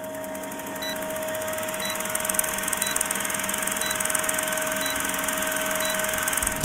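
Old film projector sound effect under a countdown leader: a steady mechanical whirring rattle with a low hum. A short, faint, high beep marks each second of the count.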